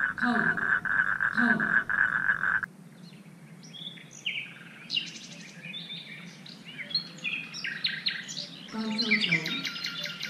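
A frog calling: a fast, steady pulsing trill over repeated low croaks, which cuts off abruptly between two and three seconds in. Short chirping notes that rise and fall follow. Near the end a mix of low calls and rapid pulsed chirping starts up again.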